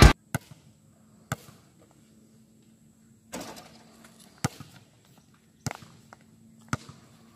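Basketball bouncing on a concrete court: separate sharp thumps roughly a second apart, with a longer scuffing noise a little over three seconds in.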